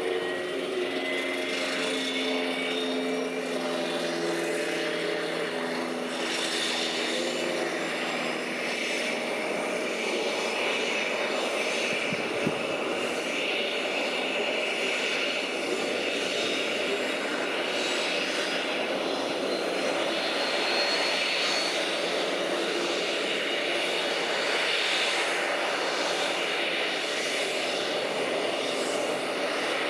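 Airbus A320-200 jet engine running during pushback: a steady rush of noise with a thin whine that climbs slowly in pitch over the first half, as the engine spools up. A lower hum fades out in the first several seconds.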